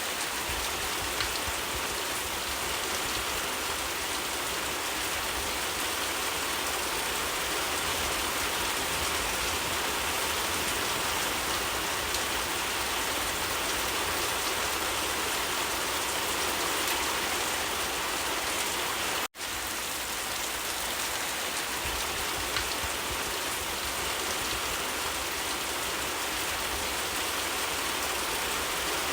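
Steady, heavy rain falling, an even dense hiss with no let-up. It cuts out for an instant about two-thirds of the way through and resumes at once.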